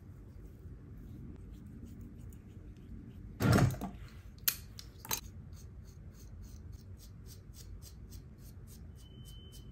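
Small plastic disposable face razor being handled, with a loud rustle about three and a half seconds in and two sharp plastic clicks just after. Then the blade scrapes over the skin in short, quick strokes, about three a second.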